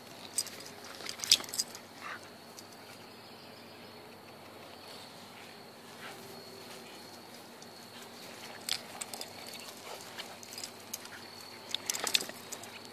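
Two dogs playing tug-of-war over a toy on grass: scattered scuffles and sharp clicks, the loudest about a second in and a cluster near the end, over a steady high insect trill.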